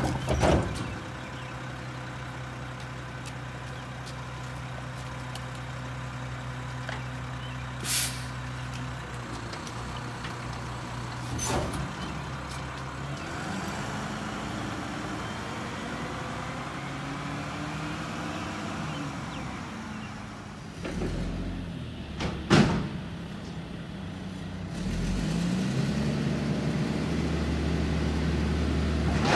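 Garbage truck engine idling, with short sharp hisses of its air brakes about eight, eleven and twenty-two seconds in. In the middle the engine speeds up and slows several times, and near the end it runs steadily louder.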